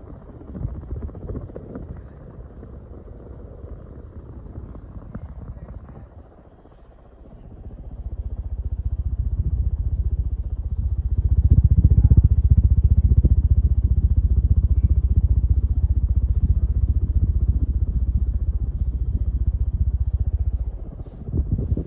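Kviflon ceiling fan running, its blade airflow buffeting the microphone as a low pulsing rumble that swells about eight seconds in and drops off sharply near the end.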